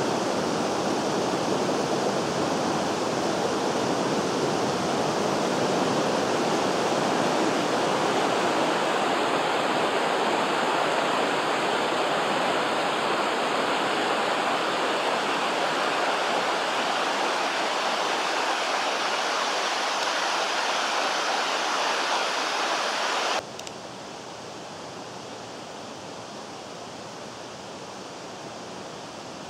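Steady rush of the Vydra mountain river's flowing water. About 23 seconds in it drops suddenly to a quieter, steady rush.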